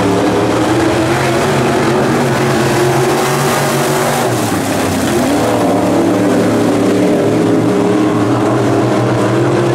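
Pro stock dirt track race cars' V8 engines running hard as the pack laps the track, several engine notes overlapping and rising and falling a little in pitch.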